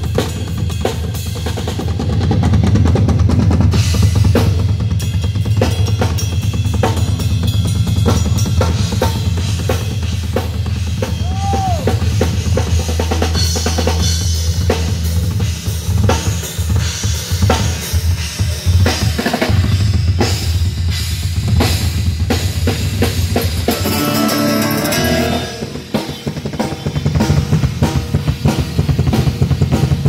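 A live drum kit played in a busy groove, kick drum, snare and cymbals, during a street band's sound check, with steady low bass notes underneath. The low notes break off briefly about three-quarters of the way through, then come back.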